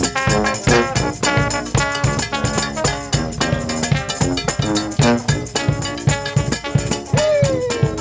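Funk music in a New Orleans brass style: horns play over a busy, steady drum beat, and a falling horn slide comes about seven seconds in.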